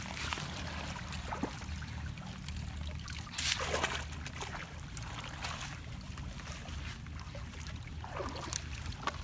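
Muddy pond water trickling and sloshing as a woven bamboo chhneang fishing basket is worked through the shallows, with louder splashes about three and a half seconds in and again near the end, over a steady low rumble.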